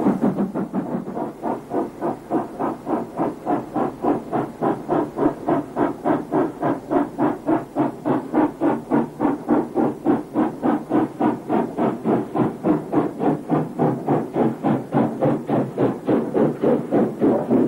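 Steam locomotive exhaust chuffing in a steady, even rhythm of about three to four beats a second.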